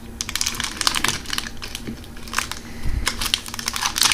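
Foil wrapper of a hockey card pack crinkling and crackling in quick, irregular crackles as hands grip and twist it to tear it open.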